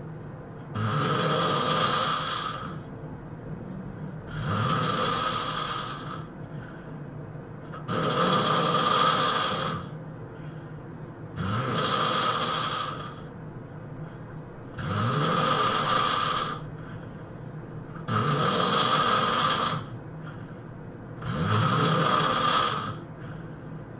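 A sleeping person snoring loudly and regularly: seven snores, one about every three and a half seconds, each lasting about two seconds.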